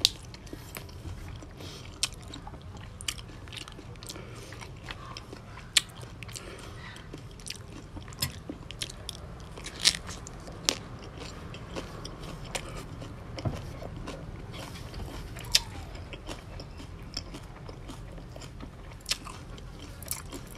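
A man chewing mouthfuls of raw Napa cabbage wrapped around spicy raw salmon salad, with irregular crisp crunches and wet mouth clicks, the loudest crunch about ten seconds in.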